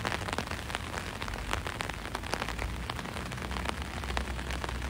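Steady rain falling, with many individual drops ticking sharply close to the microphone over a low steady rumble.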